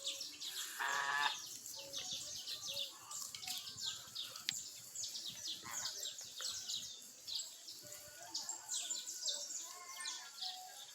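Many birds chirping, short high chirps overlapping with no break, with one brief lower call about a second in.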